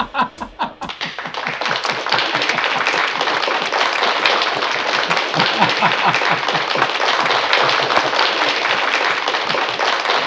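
Rapid, steady clapping of hands with laughter over it.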